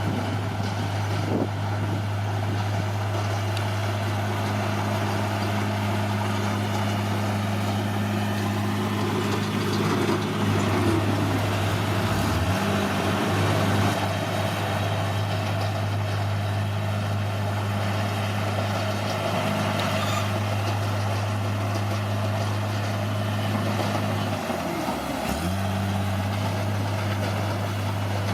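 Heavy earthmoving machine's diesel engine running steadily with a low, even hum. About midway and again near the end the engine note briefly drops and then recovers.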